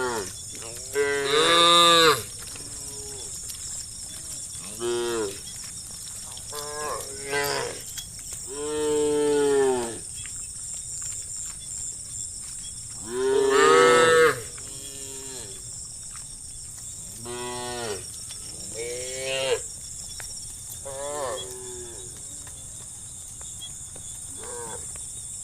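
Cows mooing again and again, about ten separate calls, some short and some drawn out over a second. The loudest two come about two seconds in and near the middle.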